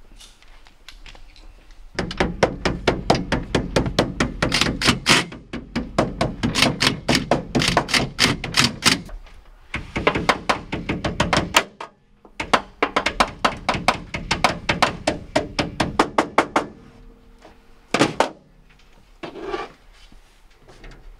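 Rapid hammer blows on the metal panel of a K9 transport cage inside a vehicle, about four or five strikes a second in long runs with short breaks, then a couple of single knocks near the end.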